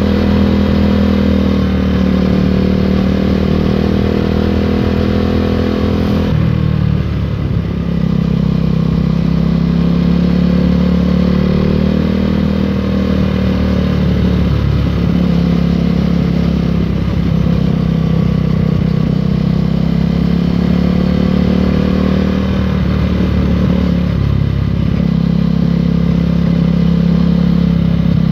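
KTM Duke 390's single-cylinder engine through an Akrapovic racing-line exhaust, ridden at a steady pace; the engine note dips briefly and picks up again about six, fifteen and twenty-five seconds in.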